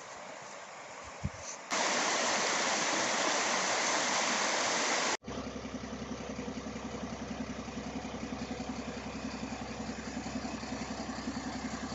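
A creek's water runs softly. Then a much louder, steady rushing noise takes over for about three and a half seconds and stops abruptly. After it, an Iveco fire engine's diesel engine idles with a fast, even pulse.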